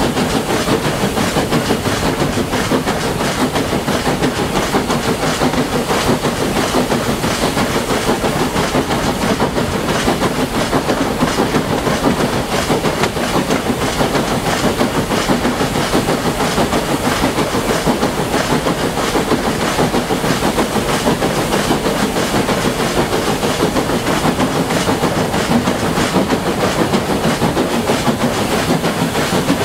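A steam locomotive hauling its train up a gradient, heard from the moving train: a steady, loud mix of working steam and wheels clattering on the rails, with no break or change.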